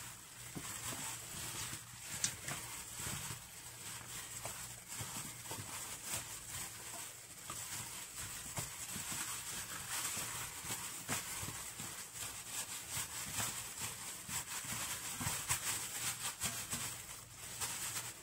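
Raw chicken wings being mixed by a plastic-gloved hand in marinade in a stainless steel bowl: an irregular, continuous run of wet squelches and small slaps as the meat is turned and squeezed to coat it.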